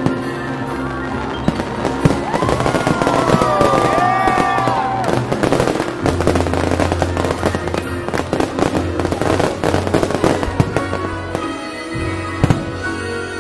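Fireworks show finale: rapid, dense bangs and crackling bursts of aerial shells, with several whistles sliding up and down in pitch about two to five seconds in, over the show's orchestral music soundtrack.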